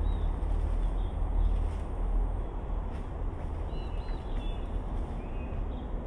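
Steady low outdoor rumble with a small bird chirping a few times, most of the chirps about four seconds in.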